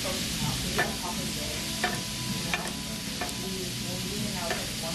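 Pork belly sizzling steadily on a hot griddle, with several sharp metallic clicks from kitchen scissors and tongs as a mushroom is cut over the grill.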